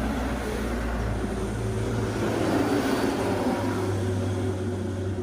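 Honda Vario scooter's single-cylinder engine running just after starting, with its level swelling a little in the middle and easing off near the end.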